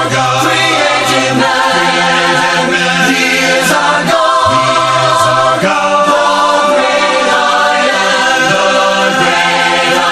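A cappella choir singing a hymn in harmony, with long held chords that change every second or two.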